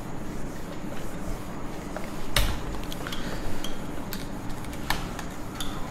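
Whiteboard being wiped clean by hand: a steady rubbing with several sharp clicks and knocks against the board, the loudest about two and a half seconds in.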